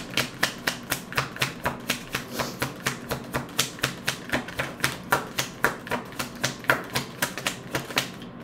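A deck of tarot cards shuffled in the hands, the cards clicking and slapping against each other in a quick, even rhythm of about five a second, stopping near the end.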